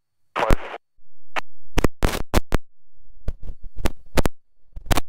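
Aircraft radio/intercom audio: a short burst of static about half a second in, then a rapid, irregular series of sharp clicks and crackles, typical of transmissions being keyed and squelch breaking on the frequency.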